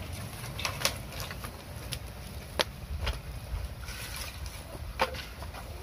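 Wood fire in a block stove crackling, with a few sharp pops and snaps as sticks are pushed into the flames, over a low steady rumble.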